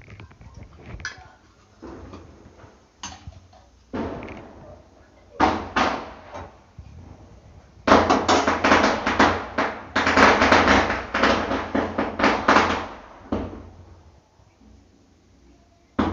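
Cookware being handled: a run of knocks, clatters and scrapes of pots and utensils. Scattered at first, then dense and loudest for about five seconds from about eight seconds in.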